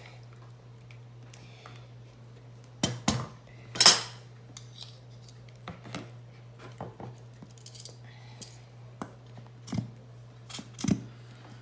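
A spoon clinking and tapping against a dish while sticky honey is measured out: a few sharp clinks about three to four seconds in, the loudest near four seconds, then scattered lighter taps.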